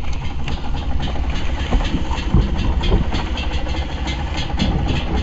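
Trail motorcycle engine idling steadily while the bike lies on its side after a drop, with scattered rustles and knocks over it.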